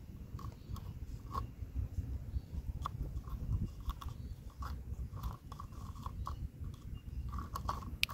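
A stick stirring and prodding concrete pieces in a plastic cup of foaming concrete dissolver, giving irregular small clicks and crackles as the liquid fizzes, over a steady low rumble.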